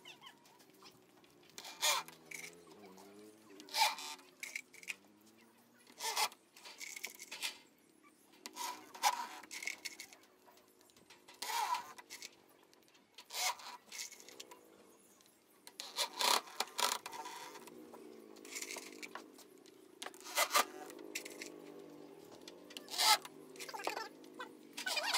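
Cordless drill driving screws in about a dozen short bursts to fasten an expanded-metal grille onto a subwoofer cabinet, with metallic scraping and the rattle of screws taken from a tub.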